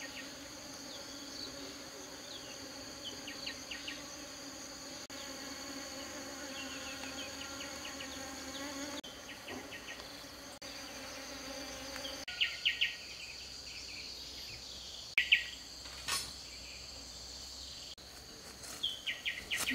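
Steady outdoor insect chorus: several high, continuous buzzing tones that shift abruptly at cuts between shots. Short clusters of quick high chirps come every few seconds, with the loudest about three-quarters through, and one sharp click just after it.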